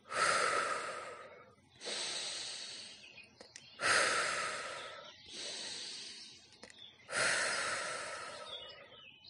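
A woman breathing audibly into the microphone: three rounds of breathing in through the nose and out through the mouth, as a breathing exercise. The breaths alternate louder and softer, roughly one every second and a half.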